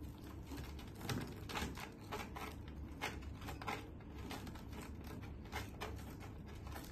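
Corrugated plastic flexible hose being twisted clockwise into the car blower dryer's threaded outlet: a run of irregular light clicks and scrapes.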